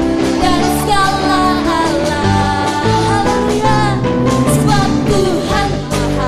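Church worship band playing an upbeat praise song with singing, backed by bass, guitar and drums with cymbal hits.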